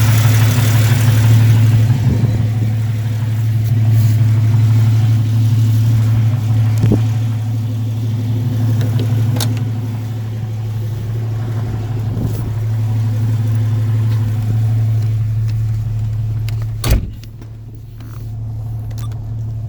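Jeep inline-six engine running steadily at idle, with the ticking of an exhaust leak from a cracked exhaust manifold. Near the end a single sharp knock, after which the engine sounds quieter and duller.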